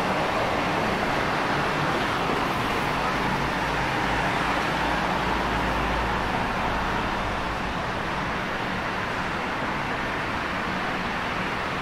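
Steady city road traffic noise, with a low rumble underneath that stops about seven seconds in.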